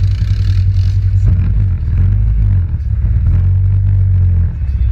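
ATV engine running hard at high revs in deep mud, the throttle enough to lift the front and flip the quad over backwards. The engine note drops off about four and a half seconds in.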